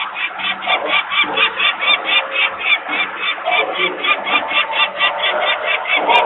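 Adult peregrine falcon giving its rapid alarm call, a steady run of harsh notes about six a second that starts suddenly and keeps on without a break. It is a parent alarmed by people working near the nest.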